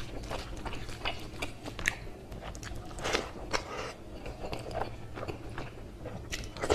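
Close-miked eating: a man chewing mouthfuls of rice and hilsa fish curry eaten by hand, with wet smacking and irregular short clicks and crunches throughout.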